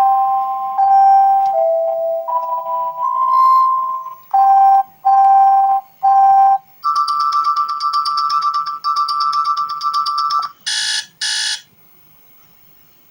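Doogee X10 smartphone ringtones and alarm tones played one after another: a short electronic melody, then three evenly spaced beeps, then a fast trilling two-note electronic ring lasting about four seconds, then two quick bright bell-like bursts near the end.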